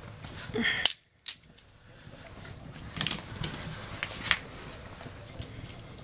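Small sticks of wood snapped by hand: one loud sharp snap about a second in, then scattered sharper cracks and clicks around three and four seconds in.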